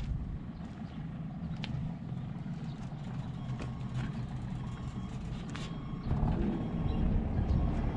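A tractor engine running steadily, growing louder about six seconds in.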